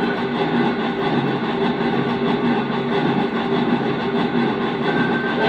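Sound system of a Lionel Legacy O-scale Union Pacific 9000-class 4-12-2 steam locomotive model playing steady steam-locomotive running sounds at slow speed.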